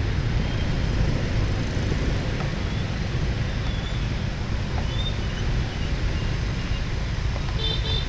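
Steady street-traffic rumble with a brief high horn toot near the end.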